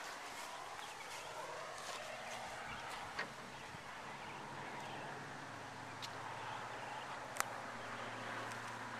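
A flock of domestic guinea fowl calling faintly as they forage, over a steady low engine hum that comes in about two seconds in. Two sharp clicks, the louder one near the end.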